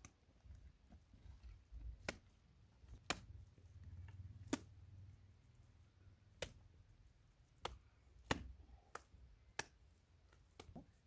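Wet mud plaster slapped and pressed onto a mud-brick wall by hand. About ten sharp slaps come at irregular intervals, roughly one a second, over a low rumble.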